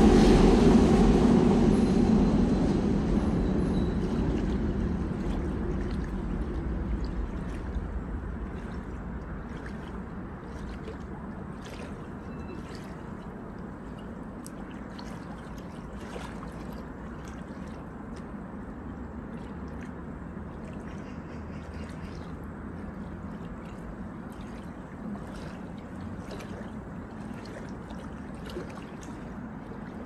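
River water lapping at the bank with small trickling splashes, over a steady low rumble. A louder low rumble fades away over the first ten seconds or so.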